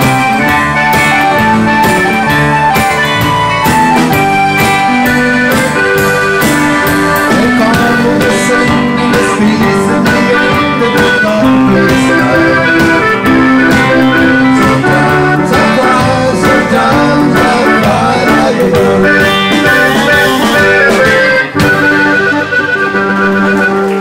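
Live band music: electric bass, electric guitars and a drum kit, with a male voice singing at times. About 21 seconds in the drums stop and the band holds a final chord that rings on to the end.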